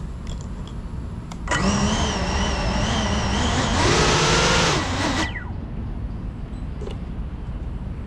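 A GEPRC CineLog35 cinewhoop's motors spin up on the ground with a steady whine and hum about a second and a half in. Near four seconds they are throttled higher, rising in pitch with a rush of prop wash, then cut and spool down with a falling whine about five seconds in.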